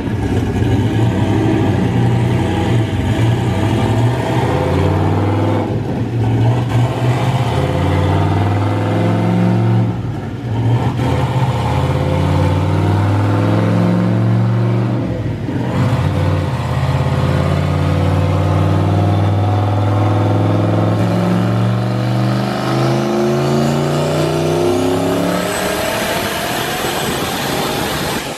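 Turbocharged 5.3 L LS V8 in an Infiniti G35 coupe running under load on a chassis dyno, dipping briefly about 6, 10 and 15 seconds in. Over the last several seconds it climbs steadily in pitch through a wide-open pull, with a thin rising whistle above the engine note.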